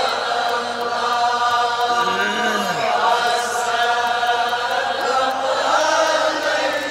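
A congregation of men's voices chanting a salawat refrain together, long notes drawn out in unison.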